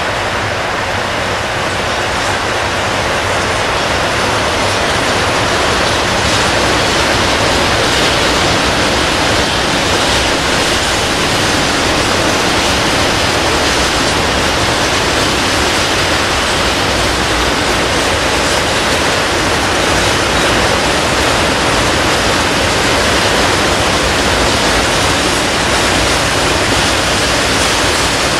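Tank wagons of a long freight train rolling past, the steel wheels on the rails making a steady, loud rushing rumble that grows a little louder over the first few seconds and then holds.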